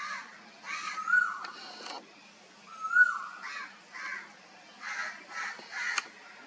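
Birds giving a series of harsh calls, about one a second, some rising then holding their pitch. A sharp click comes near the end.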